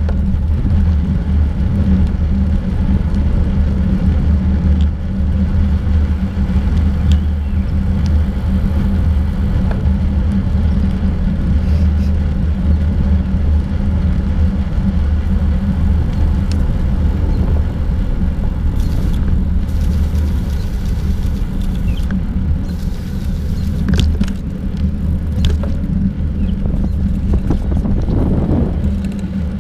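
Steady low rumble of wind buffeting and road vibration picked up by a bicycle-mounted GoPro while riding on an asphalt trail, with a few faint ticks scattered through it.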